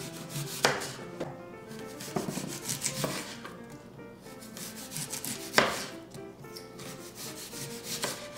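Knife cutting up a Gala apple on a wooden cutting board: a handful of sharp knocks as the blade meets the board, the loudest about five and a half seconds in, with scraping and rubbing of the knife through the fruit between them.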